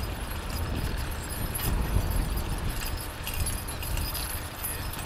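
Wind buffeting the microphone with a steady low rumble, over the light jingle of the harness and trace chains on a pair of Shire horses pulling a plough.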